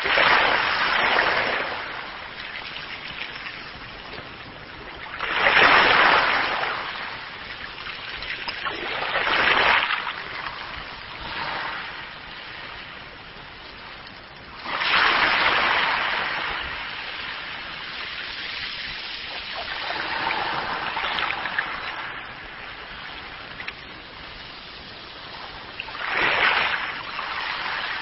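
Sea waves breaking and washing up, with a steady rush of water between them. Each wave swells loud and falls back, every five or six seconds.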